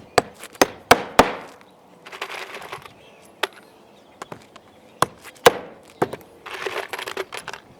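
Hammer striking 1-inch roofing nails into flat-roof material, a quick run of blows in the first second and a half, then single blows a few seconds apart, with short stretches of scuffing noise between.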